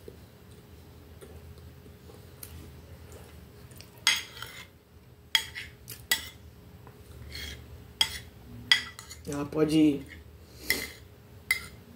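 A metal spoon clinking and scraping against a plate as a slice of cake is cut and scooped. It starts about four seconds in and comes as a string of separate strokes, roughly one every half second to second.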